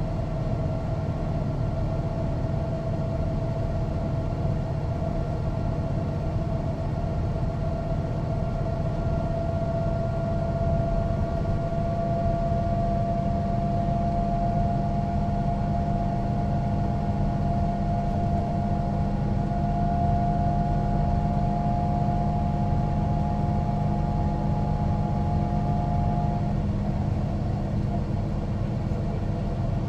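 Mercedes-Benz O405NÜ city bus's diesel engine running with a low rumble, under a steady whine that drifts slowly upward in pitch. The whine stops a few seconds before the end.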